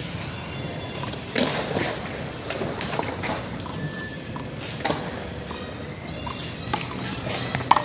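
Small rubber handball being slapped by hand and smacking off the wall during a one-wall handball rally: several sharp slaps a second or so apart, the loudest near the end.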